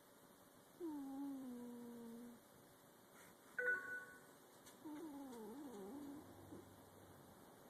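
Snoring: two long, pitched snores about four seconds apart, the first falling then holding steady, the second wavering up and down, with a short sharp squeak between them.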